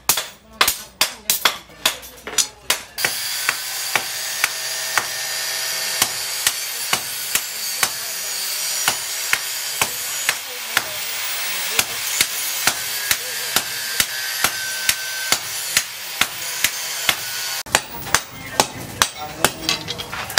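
Hammers striking hot steel on a steel post anvil, forging a chainsaw bar into a knife blade: quick blows at first, about three a second, then a steady run of about two blows a second over a steady rushing hiss that stops near the end, when single-hand hammering resumes.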